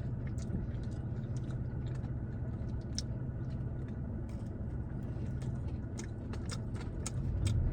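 Crunchy macarons being chewed: scattered small crunches and clicks over a steady low hum.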